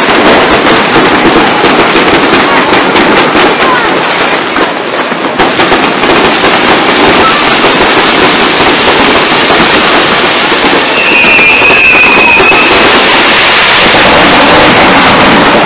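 New Year fireworks going off: a dense, rapid crackle of bangs for the first several seconds, then a loud, continuous crackling wash. A brief high steady whistle sounds over it about eleven seconds in.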